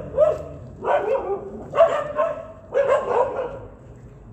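Street dog barking in four short bursts about a second apart.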